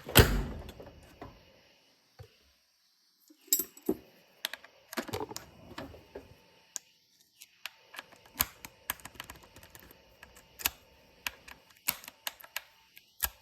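Hand tools and small parts being handled: a loud knock right at the start, then a long run of sharp, irregular clicks and taps, like a cordless ratchet and its bits being picked up, set down and fitted.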